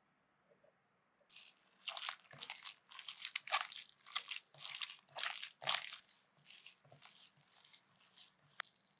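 Kitchen knife cutting crisp food on a cutting board: irregular crunching strokes, two or three a second, starting about a second in.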